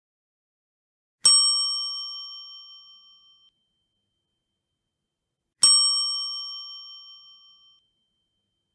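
Old phone ringtone made of a single bell-like ding, struck twice about four seconds apart, each ring fading out over about two seconds.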